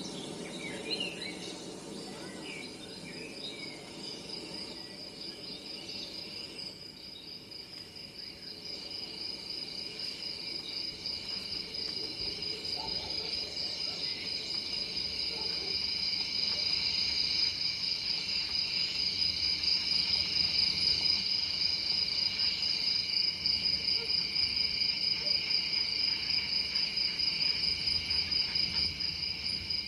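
Crickets chirping in a steady, pulsing high trill that grows louder through the first half and then holds, with a few short bird chirps in the first seconds.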